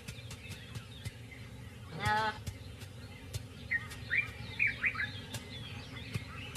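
An impala fawn bleats once, about two seconds in. Birds give several short rising chirps a little later.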